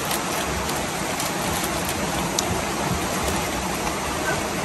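A river rushing steadily, with light crinkles and ticks of a plastic instant-noodle packet being handled and torn open.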